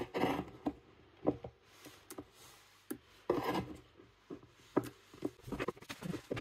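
Large kitchen knife cutting and scraping block chocolate on a wooden cutting board, in irregular short strokes with a few longer scrapes.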